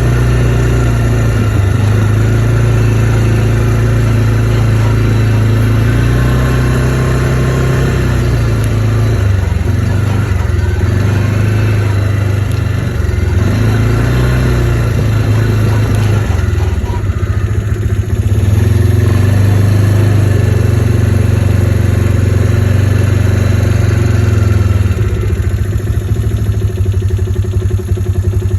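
ATV engine running while riding, its pitch shifting up and down with the throttle. About 25 seconds in it drops to a lower, evenly pulsing run.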